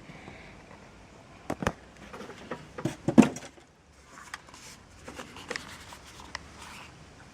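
Irregular mechanical clicks and knocks of the Walther P38 CO2 air pistol being handled, loudest about three seconds in.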